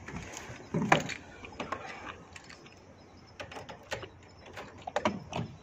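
Scattered small clicks and knocks of a man getting into a car's driver's seat with the door open, with one louder knock about a second in.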